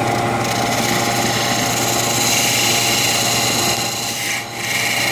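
Wood lathe running with a tool held against the spinning wooden stick: a steady scraping hiss over the machine's hum. The scraping stops briefly about four and a half seconds in, then starts again.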